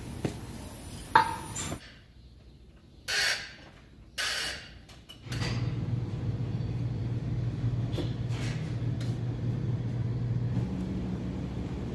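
Nissan Navarra engine idling with a steady low hum from about five seconds in, where it comes in suddenly; the truck has a cylinder-4 misfire logged as code P0304. Before it, a sharp click about a second in and two short hissing bursts.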